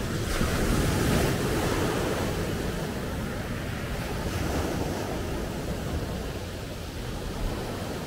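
Sea waves breaking and washing up a pebble beach, swelling about half a second in and again around four seconds in.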